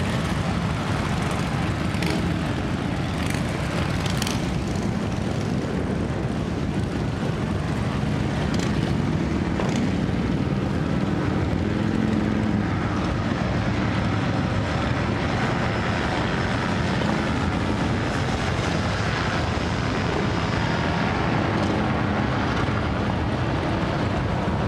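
A group of motorcycles running together, giving a steady low engine rumble that holds the same level throughout.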